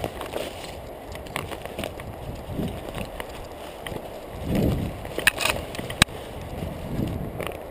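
A runner's footfalls and brushing through low forest undergrowth, picked up by a chest-mounted camera, with uneven thumps and rustles and scattered sharp clicks. A louder swish comes about four and a half seconds in, and a sharp click about six seconds in.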